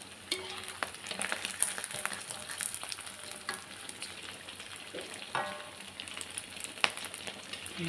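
Pieces of ulen (pounded glutinous rice cake) deep-frying in a wok of hot oil, sizzling steadily, while a metal spatula scrapes and knocks against the wok, prising apart pieces that have stuck together. There are many sharp ticks and a couple of brief ringing scrapes.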